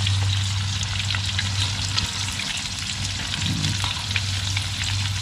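Hot cooking oil sizzling and crackling steadily as a batch of food deep-fries, with a steady low hum underneath.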